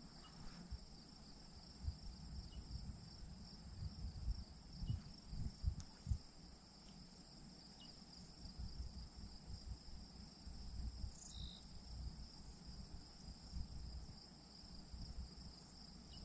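Steady insect chorus in the grass, two even high pitches held without a break, over irregular low thumps and rustles.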